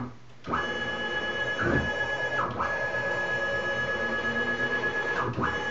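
Stepper motors driving the ball-screw table of a Fehlmann Picomax 50 CNC mill at 2,000 mm/min, a steady high whine. It cuts out briefly at the start and dips in pitch and recovers a few times as the table changes speed. The motors occasionally make grunting noises, which the owner has been told are not lost steps but the controller's processor failing to keep up.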